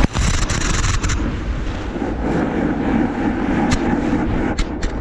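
Snowboard sliding and scraping over hard, icy snow, with wind rushing over the camera's microphone and several sharp knocks as the board or camera hits the snow.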